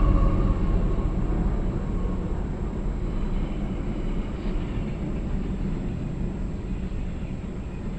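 Freight train wagons loaded with steel rolling past on the rails, a steady low rumble that slowly grows quieter. The passing locomotives' tones fade out about a second in. Heard from inside a car through the windscreen.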